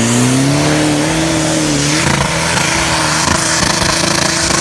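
Off-road vehicle's engine revving hard under load, its pitch climbing over the first two seconds and then holding high and steady.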